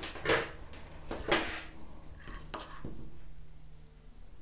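Small metal spatula scooping thick cream from a stainless steel bowl, a few short scrapes and light clinks of metal on metal.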